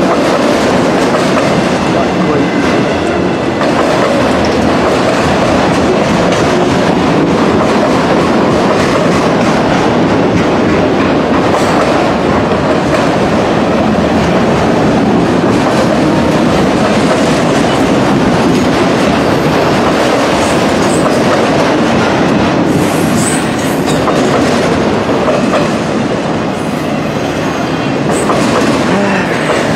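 Freight cars of a long mixed-freight manifest train rolling past close by: a loud, steady rumble of steel wheels on the rails with clickety-clack over the rail joints.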